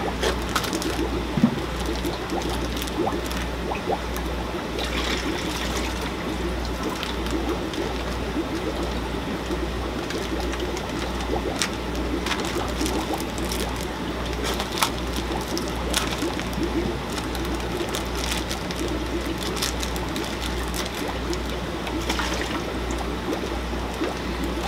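Water trickling and splashing as fish shipping bags are emptied into an aquarium, with crinkles and clicks from the plastic bags. A low hum runs underneath.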